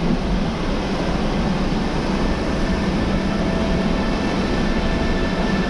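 Steady vehicle running noise: a dense, even rush with a low hum underneath.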